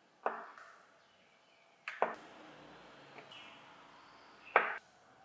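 A large kitchen knife chopping down through rolled dough onto the worktop: three short knocks, about two seconds apart.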